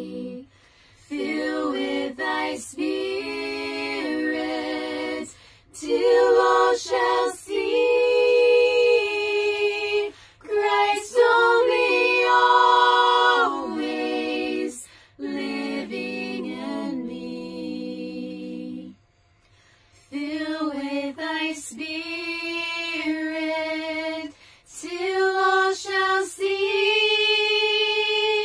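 Four women singing a hymn a cappella in harmony, slow sustained phrases with short breaks between them.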